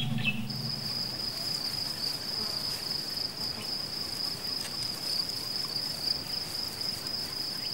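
A steady, high-pitched insect trill, cricket-like, that sets in about half a second in and runs on unbroken. The last notes of background music die away at the very start.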